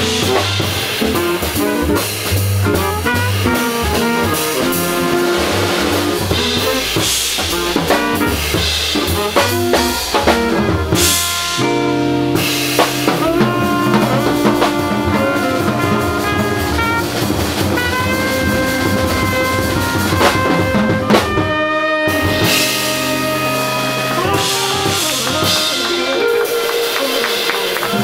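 Small jazz band playing live: trumpet and saxophone lines over a drum kit.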